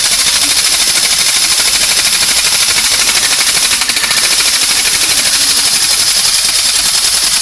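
Battery-operated tin toy machine gun (TADA Japan TD 1800 MG) firing its mechanism: a loud, fast, continuous metallic rattle, mostly high-pitched.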